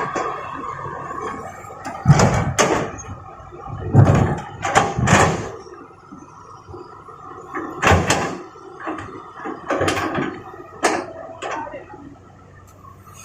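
Large rocks from an excavator bucket crashing into the steel bed of a dump truck: several heavy thuds and clatters a second or more apart, over the hum of the diesel machinery.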